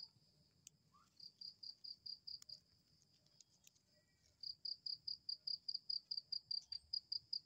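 Cricket chirping at night: a quick, even train of high chirps, about five a second. It pauses briefly and starts again about four and a half seconds in, a little louder.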